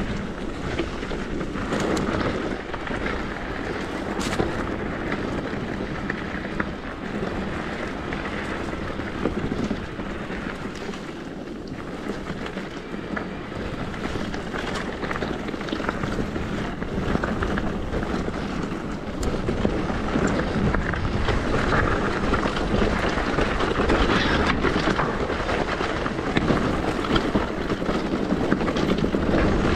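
Wind rushing over the microphone and tyres rolling over rough ground as an e-bike rides downhill, with frequent small clicks and rattles from the bike. It gets louder about two-thirds of the way in.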